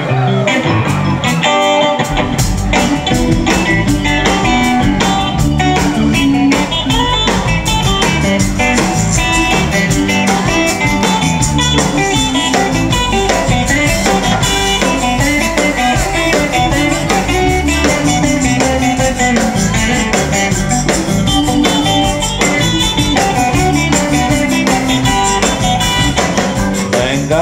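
Live rock band playing an instrumental intro: electric guitar, bass guitar and drum kit, with the low end of the band coming in fully about two seconds in.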